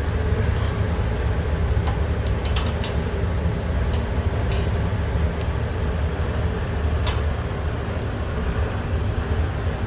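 Steady low outdoor rumble with a few light, sharp clicks of utensils at a grill: three quick ones a couple of seconds in, then two more spaced out.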